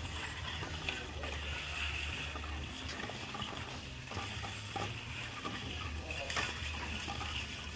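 Rotary bottle turntable running with a steady low hum, and scattered light clicks as empty plastic bottles knock against each other and the stainless steel guide rail.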